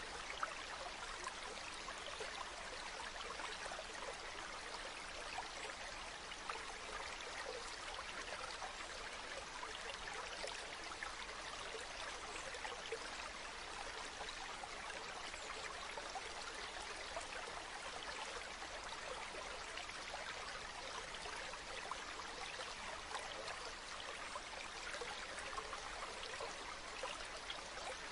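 Shallow water running over smooth pebbles: a steady, even trickle with many tiny splashes.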